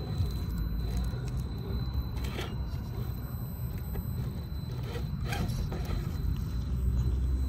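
Scale RC rock crawler with a brushed 540 motor driving over rough ground: a steady low rumble from the drivetrain, with a few short scrapes as the tires and chassis meet rock, about two seconds in and again around five seconds.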